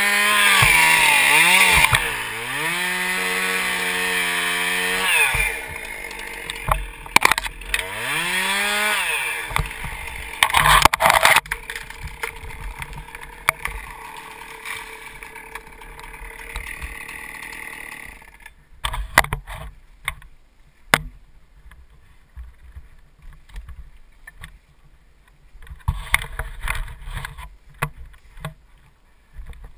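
Chainsaw running at high revs, its pitch sagging and recovering as it works through wood, then one rev up and down. It then runs more quietly and stops about 18 seconds in. After that there are only scattered knocks and rustles.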